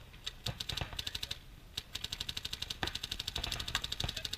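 Paintball markers firing in rapid strings of sharp pops, roughly ten shots a second, with a short break about a second and a half in before a long continuous string.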